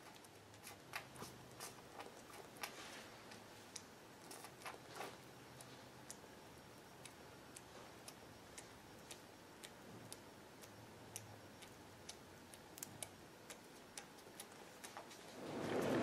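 Faint, irregular wet clicks and smacks of a 6-week-old western gray squirrel suckling formula from a syringe nipple, thickest in the first few seconds and sparser after. A louder rush of noise swells in near the end.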